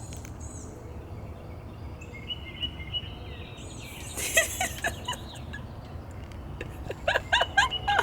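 Birds chirping in short bursts, loudest about four seconds in and again near the end, over a steady low rumble.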